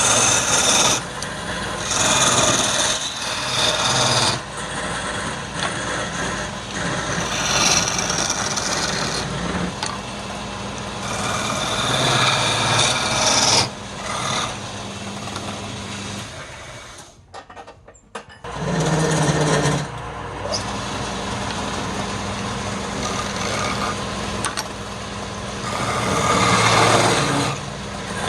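Wood lathe running with a steady motor hum while a tool scrapes against the spinning wood in uneven passes. The sound drops out briefly a little past halfway, then starts again.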